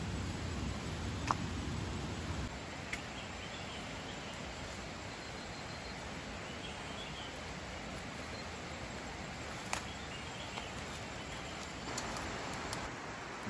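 Tropical forest ambience: a steady hiss with faint bird chirps and a few sharp clicks, and a low rumble in the first couple of seconds. Near the end there is rustling of footsteps through undergrowth.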